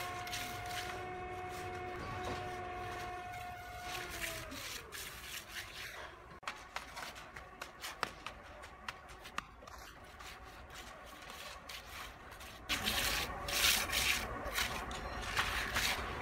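A motor hums steadily, then falls in pitch and stops about four seconds in. After that come scattered clicks and scrapes, and a louder spell of scraping and rubbing in the last few seconds, typical of hand tools working concrete.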